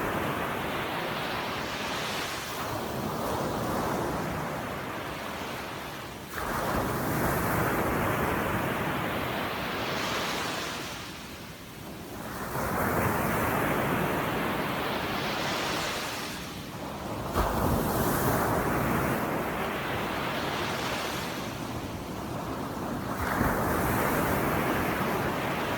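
Sea waves breaking and washing on the shore in repeated surges about every five to six seconds, each swelling up and then washing back, two of them coming in suddenly.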